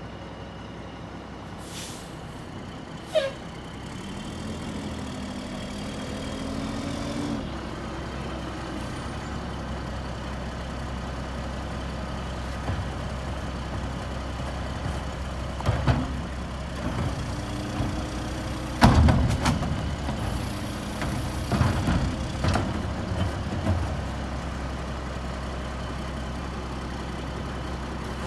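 Mack LE garbage truck's diesel engine running as it creeps forward, with a short falling squeal from the brakes about three seconds in. From about halfway there is a string of loud bangs and clunks as carts are emptied into the Heil Carry Can, the loudest a little past the middle.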